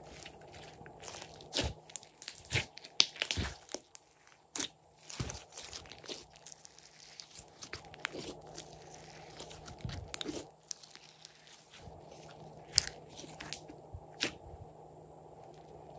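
Glossy slime being stretched, squeezed and folded by hand, making irregular sticky clicks and crackling pops. The clicks come thick and fast over the first few seconds, then sparser, with one loud pop near the end.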